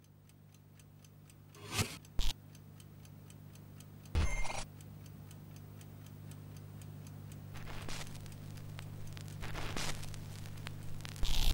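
Trailer sound design: a clock-like ticking, several ticks a second, over a steady low drone. A couple of sharp hits come about two seconds in, a louder short burst about four seconds in, and a swell near the end.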